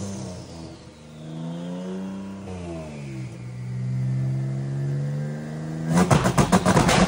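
Twin-turbo Honda J-series V6 in a mid-engine Acura Integra on a chassis dyno. Its revs fall, rise briefly and drop again before holding steady, with a faint whine winding down. About six seconds in, a loud, rapidly pulsing sound cuts in.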